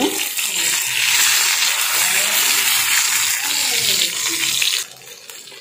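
Marinated fish sizzling in shallow oil on an iron dosa griddle (tawa) as it is turned with a spatula: a steady, loud frying hiss that drops away suddenly near the end.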